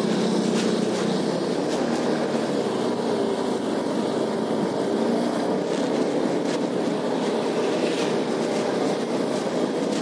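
Motor scooter riding along a road, heard from its own seat: its engine running steadily, with an even rumble of road and wind noise.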